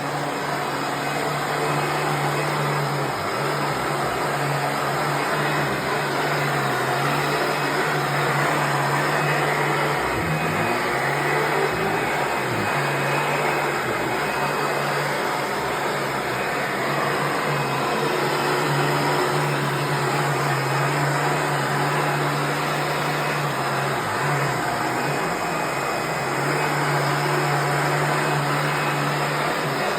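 1996 Hoover Preferred soft-bag upright vacuum cleaner running steadily on a rug: a constant whirring motor hum whose low tone dips briefly a few times.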